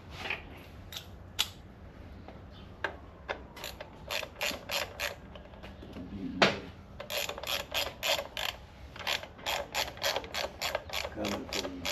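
Hand ratchet wrench clicking as it tightens the rear axle adjuster bolts: a few scattered clicks at first, then a steady run of quick clicks from about four seconds in, with one sharper knock about halfway.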